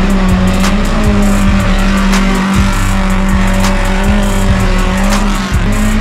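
Background music with a steady beat and a held low note.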